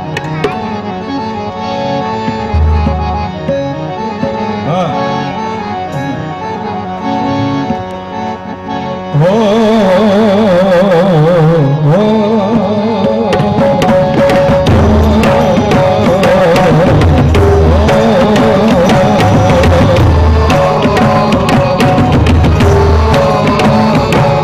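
Marathi devotional bhajan music: harmonium holding a steady melody over tabla and pakhawaj strokes, then about nine seconds in it gets suddenly louder as voices start singing the gajar over the harmonium and drums.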